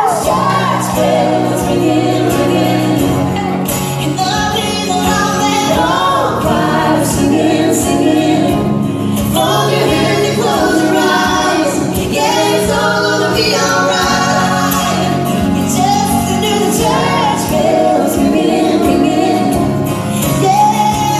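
Music: a woman singing a song over acoustic accompaniment, one unbroken passage.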